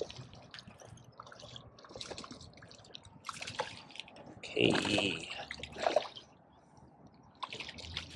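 A hooked largemouth bass splashing at the water's surface as it is played in: irregular splashes, loudest about five seconds in.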